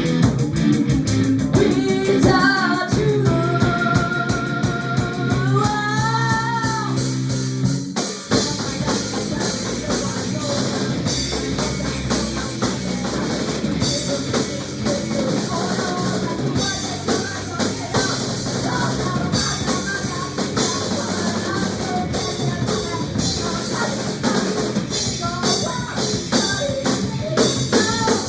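Pop-rock music with drum kit, bass and guitar and a steady beat; a held sung or lead line rises and falls in the first several seconds, and the arrangement changes about eight seconds in.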